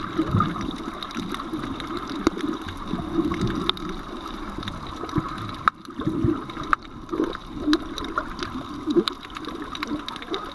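Water gurgling and sloshing as heard underwater by a moving camera, with scattered sharp clicks.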